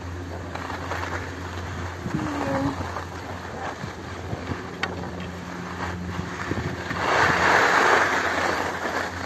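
Wind rushing over a phone's microphone, with a louder gust about seven seconds in.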